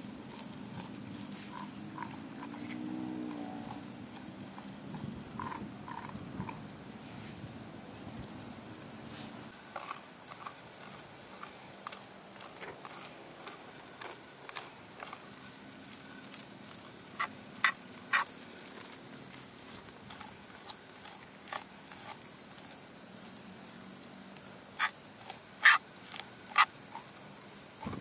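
A metal spoon scraping raw chitala (clown knifefish) flesh off the skin of a fillet on a wooden cutting board, soft wet scraping strokes gathering the meat for fish paste. Short sharp clicks come now and then, several in a cluster about two-thirds of the way in and again near the end.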